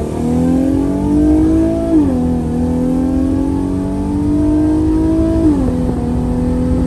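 Nissan VR30 3.0-litre twin-turbo V6 in a G37, heard from inside the cabin, pulling hard under acceleration. Its pitch climbs steadily, drops at an upshift about 2 seconds in and again about 5 and a half seconds in, then climbs again.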